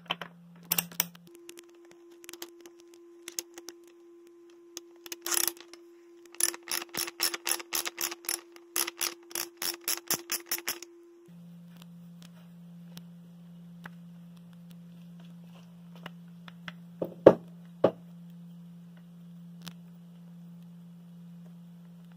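Socket ratchet clicking in a quick even run, about six clicks a second, as the fork's air-spring top cap is unscrewed, with scattered clicks before it. A steady low hum runs underneath, and there is a single loud knock about 17 seconds in.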